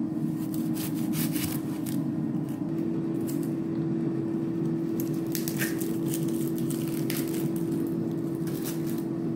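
Dry, papery onion skin crackling and rustling as it is peeled by hand off a whole onion, after a chef's knife cuts through the onion on a wooden cutting board near the start. A steady hum from a running air fryer sits underneath.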